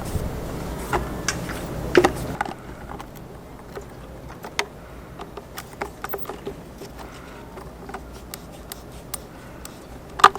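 Scattered small clicks and knocks of hands and tools dismantling a mast's deck light fitting, with a louder knock about two seconds in and another near the end. A low background rumble stops abruptly after about two and a half seconds.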